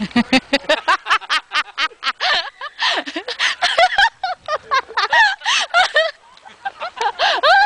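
High-pitched human laughter in quick bursts, with a brief pause about six seconds in.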